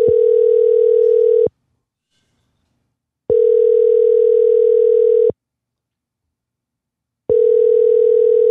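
Telephone ringback tone of an outgoing call waiting to be answered: a steady low tone that rings for about two seconds, pauses about two seconds and rings again, with a slight warble.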